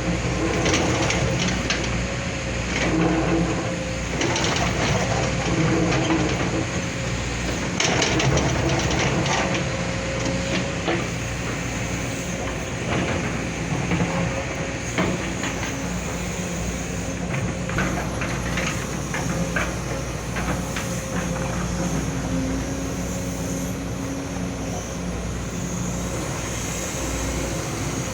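Excavator's diesel engine running steadily with a constant whine over it, and irregular knocks and clatter throughout.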